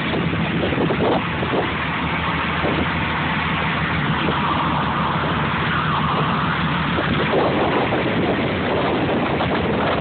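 A boat's engine runs steadily with a low hum, under a constant hiss of wind on the microphone and water.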